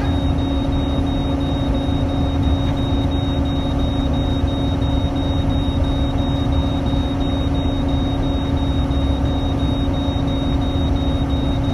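Engine and road noise of a moving vehicle heard from inside the cab: a steady low rumble with a constant drone.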